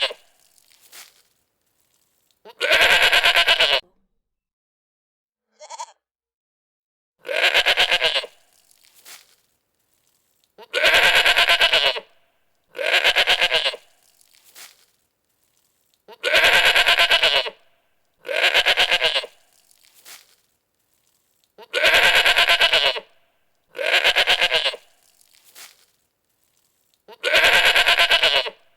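Goat bleating over and over: about nine loud, wavering bleats of roughly a second each, often coming in pairs, with dead silence between them.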